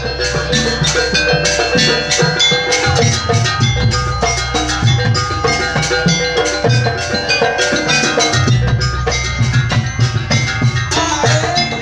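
Jaranan ensemble music: drums and ringing struck-metal percussion playing a fast, steady rhythm over held pitched notes, with repeated low booms.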